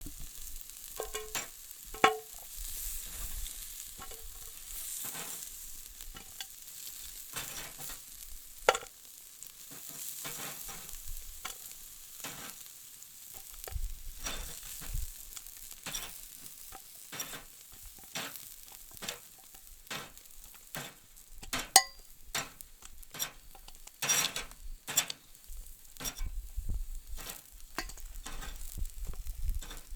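Food sizzling on a barbecue grill: a steady hiss with frequent pops and crackles, and a few louder sharp clicks scattered through.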